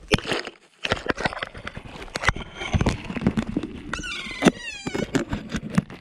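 Kea pecking and biting at a GoPro camera, its beak right on the microphone: a fast, irregular run of sharp knocks and scrapes on the plastic housing, with a short call falling in pitch about four seconds in.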